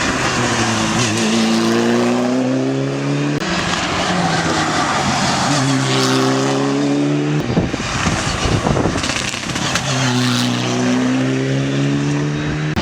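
Rally car engine revving hard, the pitch climbing under acceleration, breaking off abruptly and climbing again twice, with a rougher noisy stretch in the middle.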